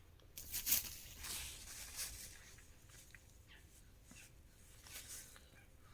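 Faint rustling and scattered small clicks, strongest in the first two seconds.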